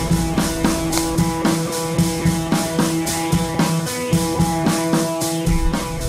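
Background music with a steady drum beat, about two beats a second, over held instrumental notes.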